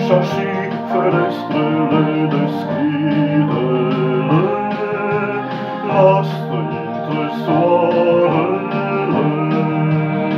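Music played on a Roland digital piano: sustained chords under a melody line that slides between notes.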